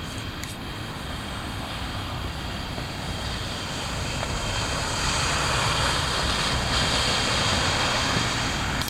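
Heavy wind blowing across the microphone: a rushing noise with a deep rumble that builds over the first five seconds, holds strong, and cuts off suddenly near the end.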